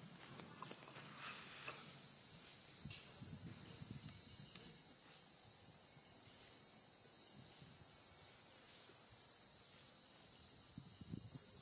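Steady high-pitched drone of an insect chorus, such as cicadas or crickets.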